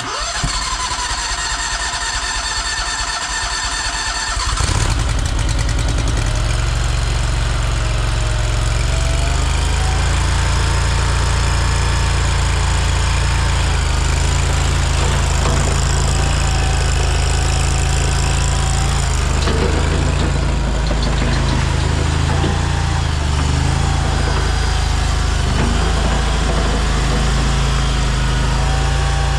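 AGT LRT23 mini skid steer's small engine being started: a high whine of cranking for about four and a half seconds, then the engine catches and runs steadily, with a thinner whine above it that wavers in pitch.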